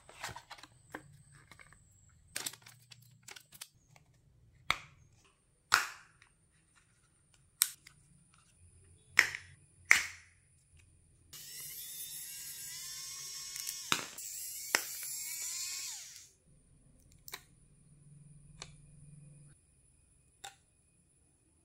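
The plastic casing of a SanDisk Extreme Portable SSD being pried open with a plastic pick: about a dozen sharp plastic clicks and snaps as the housing clips give way. Roughly halfway through there are about five seconds of steady scraping.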